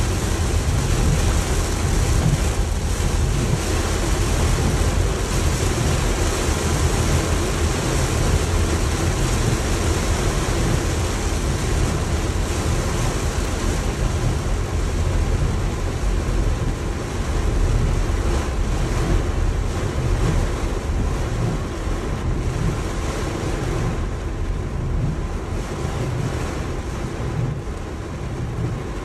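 Heavy rain pounding on a car's roof and windshield, heard from inside the cabin over a steady low road rumble from wet tyres. The high hiss of the rain thins a little near the end.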